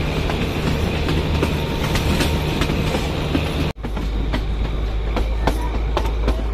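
Narrow-gauge passenger train running, heard from inside the coach: a steady low rumble with the wheels clicking over the rail joints. The sound drops out for a moment about four seconds in and comes back with a deeper rumble and faster clicks.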